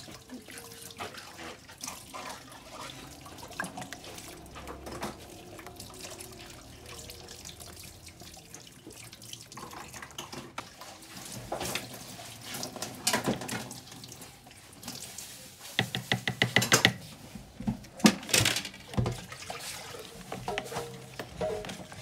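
Cream pouring from a carton into a plastic measuring jug, then a utensil knocking and stirring in the jug. A quick run of sharp taps comes about two-thirds of the way through, followed by a few louder knocks.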